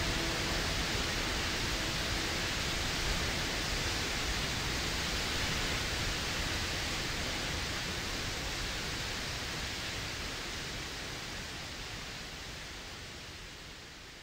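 Steady rush of a waterfall's falling water, slowly fading out toward the end.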